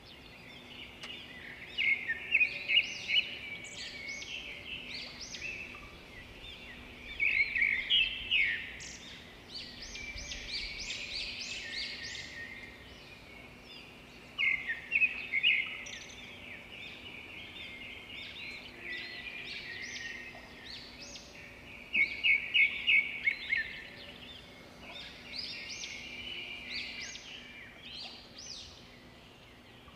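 Wild birds chirping and calling, with louder bursts of quick repeated trilling notes every several seconds, over a faint steady low hum.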